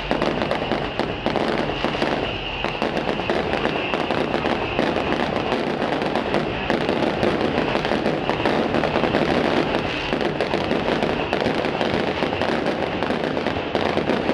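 Fireworks going off in a dense, continuous crackle, many small reports packed together without a pause.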